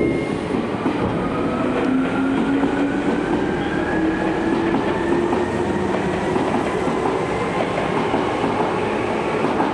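Tokyo Metro 03 series four-quadrant chopper train slowing to a stop at a station platform, heard inside the car. Running noise carries on throughout, and a thin whine rises slowly in pitch for a few seconds after about two seconds in.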